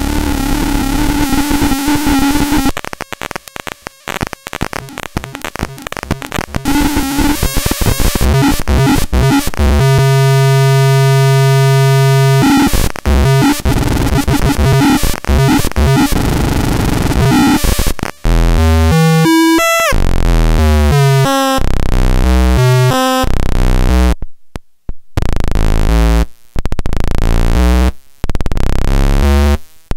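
Homemade circuit-bent noise synthesizer and step sequencer playing harsh, glitchy chiptune-style electronic noise. Stretches of buzzing static give way to a steady low buzzing tone about ten seconds in, then to fast stepped square-wave bleeps in sequence, with a brief cut-out about three-quarters of the way through.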